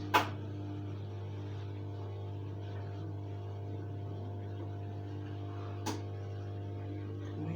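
Washing machine in its spin cycle: a steady hum with several steady tones, and two sharp knocks, one right at the start and one about six seconds in. It is the spinning noise whose normality the owner is unsure of.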